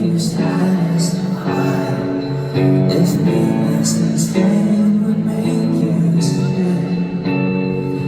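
Live pop band music heard from the audience: a sung melody over guitar, with cymbal hits recurring every second or so.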